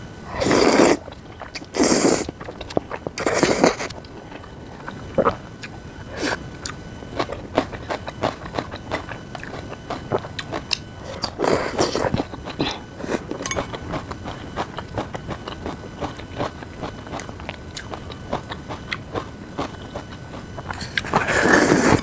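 Close-miked eating: chewing with many small crunchy crackles, typical of crisp fresh spring-cabbage kimchi and noodles. Several short, loud, noisy bursts break in: three in the first few seconds, one about halfway and one near the end.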